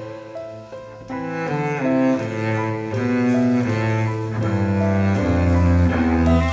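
Instrumental tango passage from a small ensemble: a bowed double bass plays long low notes under chords that change about twice a second. The bass grows stronger in the second half.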